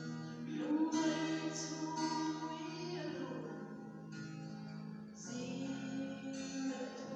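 A woman singing a slow gospel song in Mizo, accompanying herself on an acoustic guitar. She holds long notes, with a falling phrase about three seconds in and a new phrase starting a little after five seconds.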